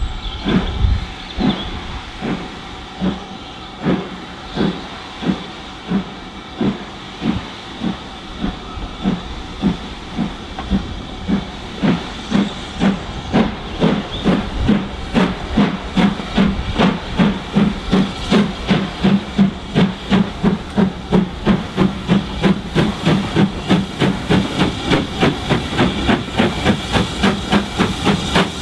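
SR U class two-cylinder 2-6-0 steam locomotive pulling away with a train. Its exhaust beats start about a second apart and quicken steadily to about three a second as it gathers speed, over a constant hiss of steam.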